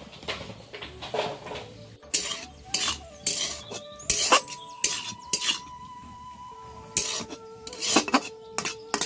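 Spatula scraping and clinking against a blackened wok as leaves and onion are stir-fried, in many irregular strokes.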